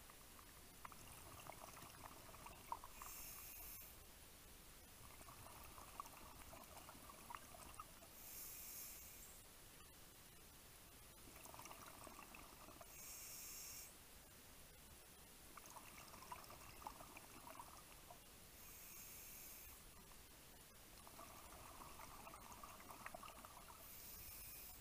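A scuba diver breathing through a regulator underwater: a short hiss on each inhale, then a longer crackling rush of exhaled bubbles. About five breaths come one every four to six seconds.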